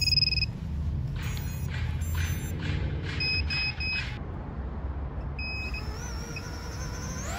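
Startup beeps from the freshly powered iFlight ProTek25 cinewhoop on a 4S LiPo: one short beep at the start, a quick run of three beeps about three seconds in, and another near six seconds. Just before the end its motors begin to spin up with a rising whine.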